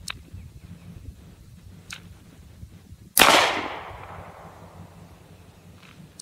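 A single shot from a Smith & Wesson M&P Shield 9mm pistol firing 115-grain ammunition, about three seconds in, with an echo that fades over about a second. A few faint clicks come before it.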